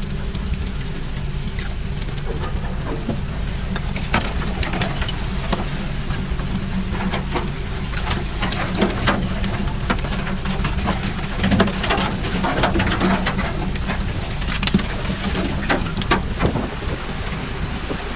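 Steady low drone of a fishing boat's engine, with gulls calling over it and a scatter of knocks and clatter as cod are handled in the net and chute on deck.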